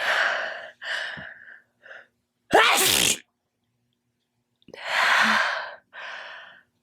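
A person sneezing several times in a row, loud and wet. Each sneeze is a short explosive burst, with breathy gasps between them. The loudest sneeze snaps out suddenly about two and a half seconds in.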